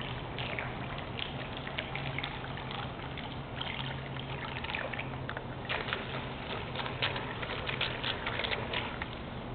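Swimming-pool water trickling and lapping, with many small irregular splashes, over a faint low steady hum.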